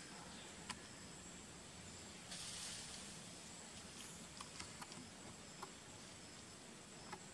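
Faint outdoor forest ambience: a steady, high-pitched insect drone over a soft hiss, with a brief rustle about two and a half seconds in and a few small, sharp clicks.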